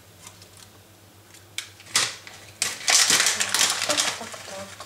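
Dry bay leaves crackling and rustling as they are handled and broken, with two sharp clicks before the loudest crackly stretch about three seconds in.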